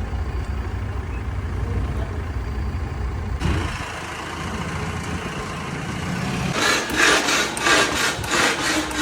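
An engine idling with a low steady rumble that stops abruptly about three and a half seconds in, giving way to a fainter hiss. Near the end comes a quick, irregular run of sharp knocks, a few a second.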